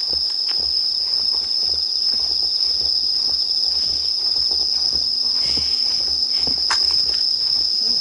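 A steady, high-pitched chorus of night insects trilling without pause in one continuous tone, with a single sharp click late on.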